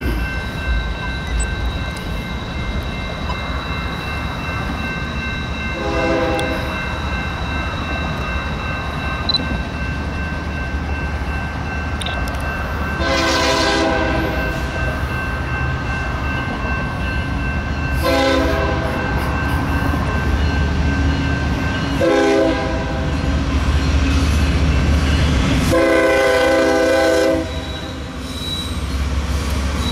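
BNSF diesel freight locomotives approaching with a steady low rumble and sounding their air horn five times from about six seconds in. The last blast is the longest.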